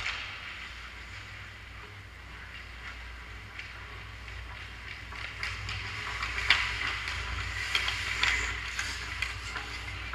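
Ice hockey skates scraping and carving on the ice, growing louder as players skate in toward the net about six seconds in, with sharp clacks of sticks and puck, the loudest a little after that. A steady low hum runs underneath.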